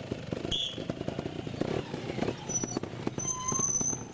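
GasGas two-stroke trial motorcycle engine running at low revs with uneven popping, the level rising and falling with the throttle.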